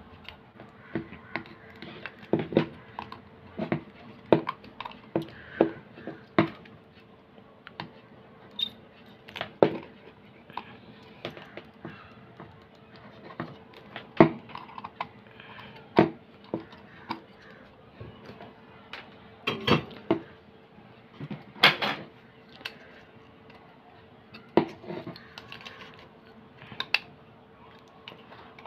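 Irregular clicks, taps and clinks of small metal and plastic parts being handled as an LED light fitting is taken apart and its wires detached, over a faint steady hum.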